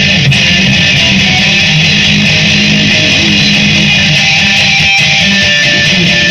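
Electric guitar playing continuously between sung lines, heard through a phone recording.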